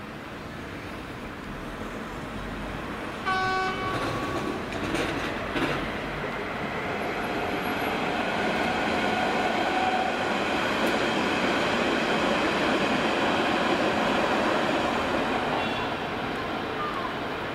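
A train passing: a short horn toot about three seconds in, then a rushing rumble that swells, holds for several seconds and fades near the end.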